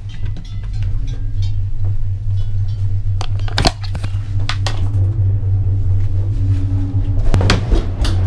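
Steady low rumble of a bike-park gondola cabin in motion, with several sharp knocks and rattles from the cabin and the mountain bikes racked inside it, bunched around the middle and again near the end.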